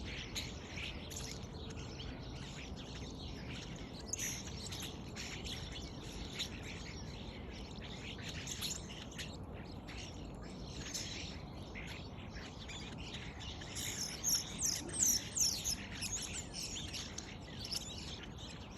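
Starlings calling and chattering, many short chirps and whistles overlapping, with a louder run of quick falling whistles about fourteen seconds in.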